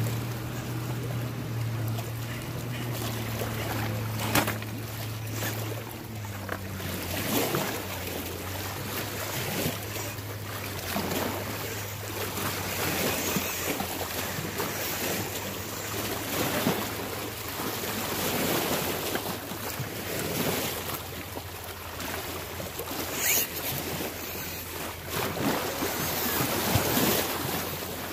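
Wind buffeting the microphone in uneven gusts, with a steady low hum underneath that is strongest in the first six seconds.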